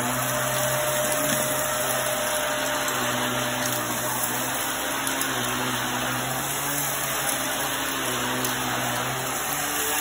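Hoover upright vacuum cleaner running steadily, its motor hum under a constant rush of air as it sucks fine dirt and sand off a rug.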